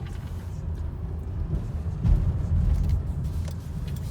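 Honda Odyssey minivan driving, a steady low road and drivetrain rumble heard from inside the cabin, growing louder for about a second starting about two seconds in.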